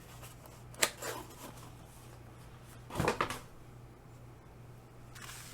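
Objects being handled and set down on a desk while unpacking a box of art supplies: a sharp tap about a second in and a louder knock about three seconds in, over a faint steady hum.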